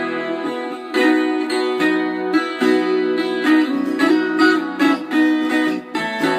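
Viola caipira playing a quick melody of plucked notes, often two strings sounding together.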